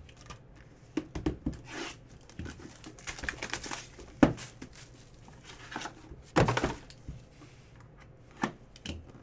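A shrink-wrapped 2018-19 Panini National Treasures basketball box being unwrapped and opened by hand: plastic wrap crinkling and rustling, with scattered knocks and thunks of the box and lid. The sharpest knock comes about four seconds in and a heavier thunk a couple of seconds later.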